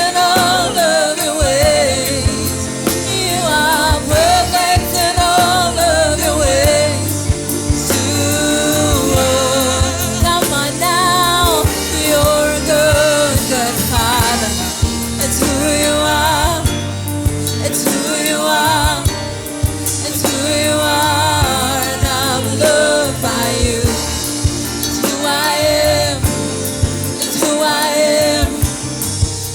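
Gospel worship song: a lead singer with backing vocals over a band with drums.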